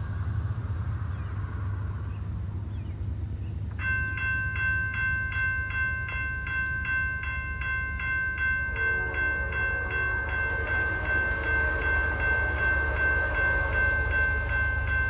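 A railroad grade crossing bell starts ringing about four seconds in, a fast, regular ding of several high tones, over a steady low rumble as the train approaches.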